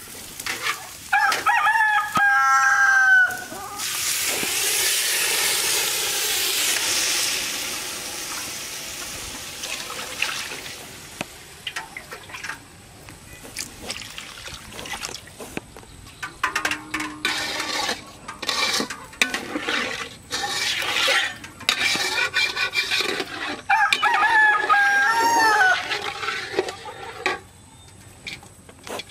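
A rooster crows twice, about a second in and again near the end. In between there is a long sizzling hiss from the pot of frying khichuri (rice and lentils), followed by scattered clicks and scrapes of a ladle stirring in the metal pot.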